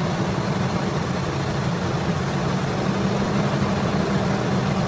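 Ford 5.4 Triton V8 in a 2003 F-150 idling smoothly and evenly, shortly after starting. The cylinder 1 misfire is gone now that the failed fuel injector has been replaced.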